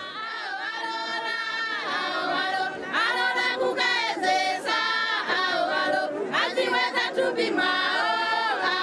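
A group of women singing together in a choir, in sung phrases with held notes.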